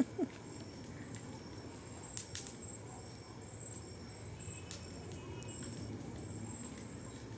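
Crickets chirping in high, steady trills that come and go, with a few sharp pops and crackles from a freshly lit bonfire burning.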